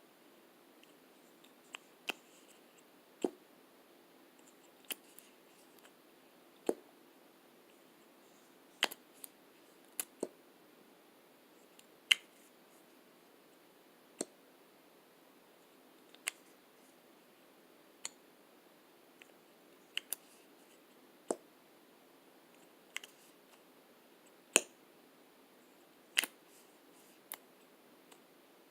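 Lipstick cases clicking: sharp single clicks, some in quick pairs, every second or two.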